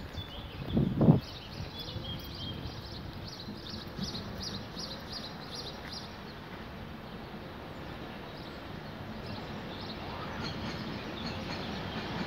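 Railway station ambience: small birds chirping, with a low thump about a second in. Near the end the rumble of an approaching intercity train begins to rise.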